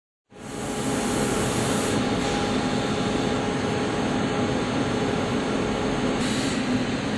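Lathe turning 42CrMo4 steel with a Walter G1011 grooving holder and GX24 insert. The machining noise is steady, with a few constant tones over a broad rush, and it starts abruptly about a third of a second in.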